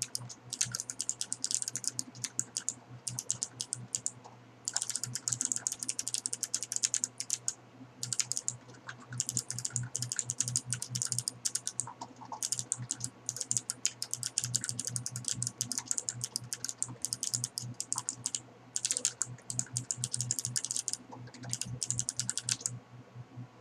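Fast typing on a computer keyboard: rapid runs of key clicks with short pauses between bursts, stopping shortly before the end.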